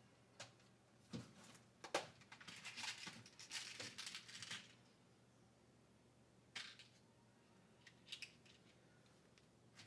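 Faint handling of small plastic zip-lock bags of fishing beads: a few light clicks, then about two seconds of crinkling plastic, with a couple of short rustles later on.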